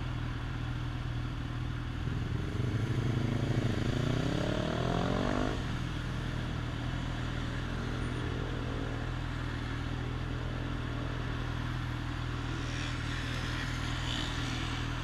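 Motorcycle engine idling steadily at a standstill, with traffic noise around it. About two seconds in, another vehicle accelerates, its engine note rising in pitch for a few seconds before it drops away.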